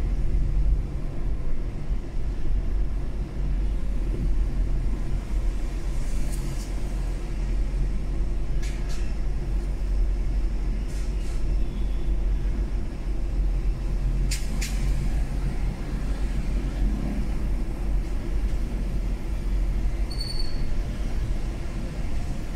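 Steady low road and engine rumble of a Mazda 3 driving in traffic, with a few faint clicks scattered through it and a short high beep near the end.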